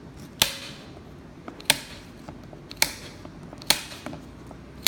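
Plastic lip of a factory speaker mount being cut off in small sections, each piece breaking away with a sharp snap, about one a second, with lighter clicks between.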